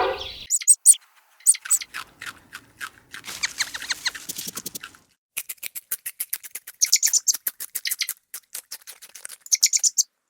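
Rapid short, high bird chirps and clicks in quick clusters, pausing briefly about halfway through.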